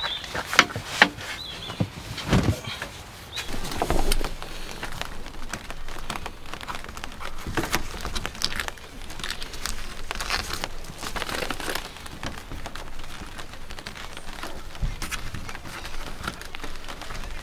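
Irregular rustling, knocks and clicks as quilted insulated window-cover panels are handled and pressed onto a van's side window glass.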